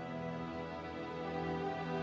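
Slow, sad background music with sustained tones, string-like.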